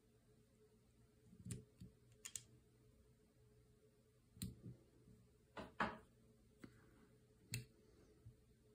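Small parts of a Glock pistol slide clicking and tapping as they are fitted back together by hand: a scattering of short, sharp clicks, roughly one a second, over a faint steady hum.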